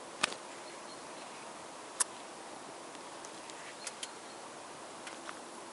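A steady background hiss with a few short, sharp clicks: two loud ones, one near the start and one about two seconds in, then several fainter ones.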